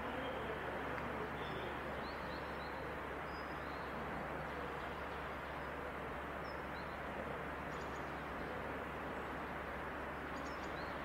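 Steady outdoor background noise, an even low rumble and hiss, with small birds chirping briefly now and then.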